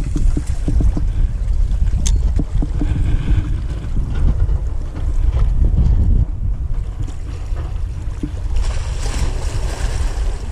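Wind buffeting the microphone with a heavy low rumble, over sea waves washing against the rocks of a breakwater, with a louder splash of surf near the end. A single sharp click about two seconds in.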